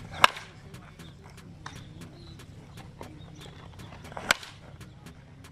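Baseball bat hitting pitched balls in batting practice: two sharp cracks about four seconds apart.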